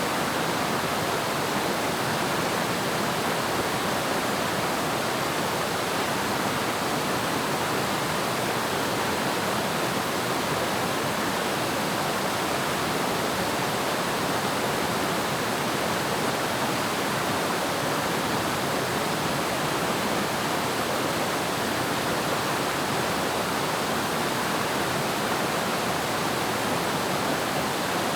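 Waterfall: falling water rushing in a steady, even hiss that never changes in level.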